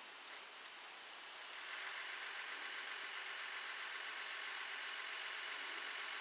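JR Shikoku 1000-series diesel railcar approaching slowly, its engine and running gear growing louder about a second and a half in, then holding steady.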